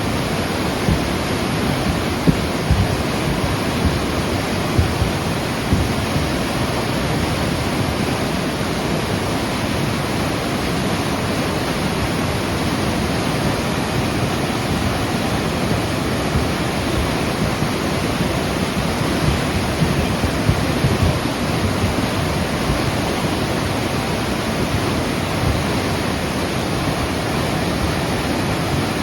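A river in flood after heavy rain, its swollen water rushing with a loud, steady roar, with a few brief low thumps along the way.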